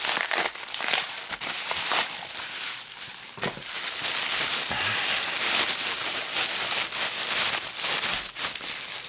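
Packing material being pulled out of a shipping box and handled, a continuous dense crinkling and rustling with many small crackles.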